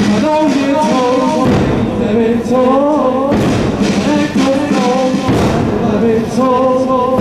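A Muharram mourning lament (noha) chanted in short melodic phrases, with a heavy thump about every two seconds keeping the beat.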